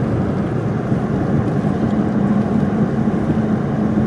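Steady drone of a car driving, heard from inside the cabin: a low engine hum with road and tyre noise.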